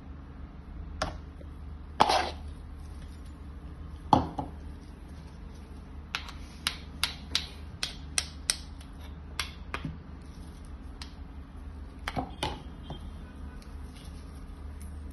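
Metal spoon tapping and clicking against a plastic food tub while seasoning is added: sharp, separate taps, a quick run of about ten in the middle and a few more near the end, over a steady low hum.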